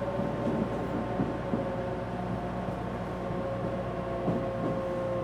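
Odakyu 1000-series electric train running, heard from inside the car: the Mitsubishi GTO-VVVF inverter gives a steady whine whose main tone slowly falls in pitch as the train slows for the next station, over rumbling wheel and track noise with occasional low knocks.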